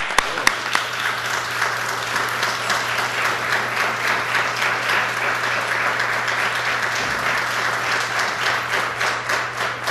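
Applause from the members of a legislative chamber: many people clapping steadily, with a low steady hum underneath.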